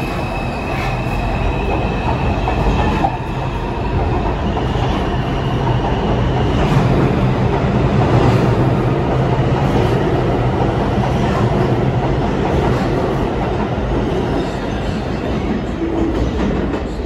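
New York City subway train running steadily on the track: a constant low rumble with the wheels clicking over rail joints every second or two.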